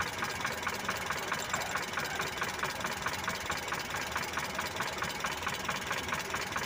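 Mitsubishi Colt T120 engine idling steadily with a fast, even ticking, just after its ignition timing has been set by turning the distributor.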